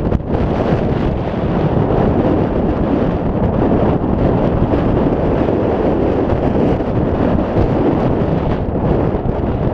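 Wind buffeting the microphone of a camera on an exposed volcanic slope: a loud, steady rushing noise, heaviest in the low end.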